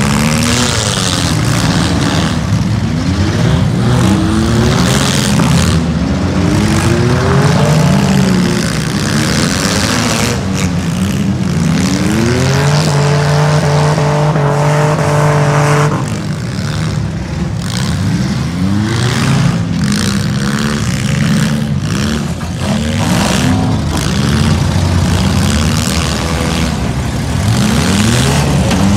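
Several street stock demolition derby cars' engines revving up and down together, their pitches rising and falling over one another. About halfway through, one engine holds a steady high rev for a few seconds, then drops off suddenly.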